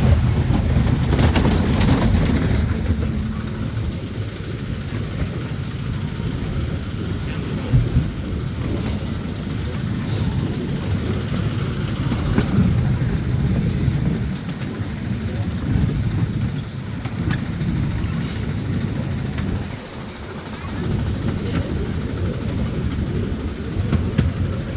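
Steady rumble and rattle of a park ride's cars running along their track, heard from on board, with a few brief knocks.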